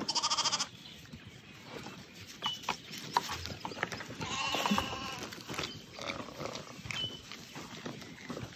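Dorset sheep bleating: one loud, wavering bleat at the start and a second one about four seconds later.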